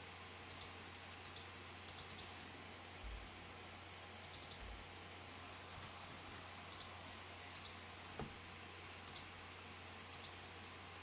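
Faint, scattered clicks of a computer mouse and keyboard as values are set in the software, over a low steady hum.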